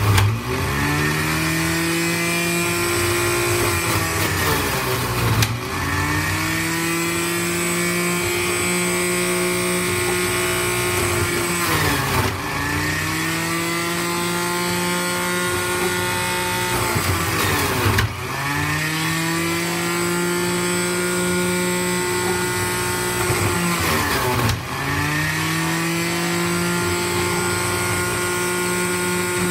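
Centrifugal juicer's electric motor running with a steady whine as carrots and apples are fed in. Five times, about every six seconds, its pitch drops sharply as a piece is pushed down onto the spinning cutter, then climbs back up as the motor recovers.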